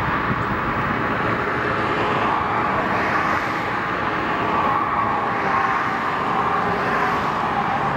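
Steady rush of passing road traffic, an even continuous noise without sudden events.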